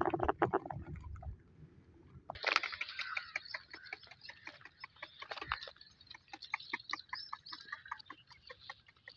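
Birds chirping in a rapid run of short, repeated calls, starting about two and a half seconds in. Low, rough thumping noise is heard in the first second or so.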